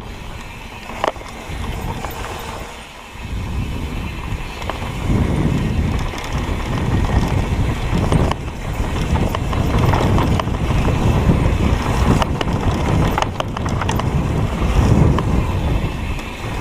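Bicycle riding over a rough dirt trail: continuous tyre rumble and rattling, with occasional sharp knocks and wind buffeting the microphone.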